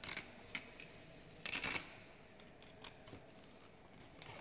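Handling noise: light clicks and taps, with a brief paper rustle about a second and a half in, as a guarantee card is lifted out of an insulation tester's carrying case.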